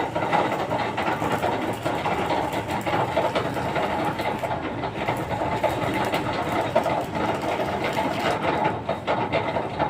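A machine running steadily with a fast, continuous clatter.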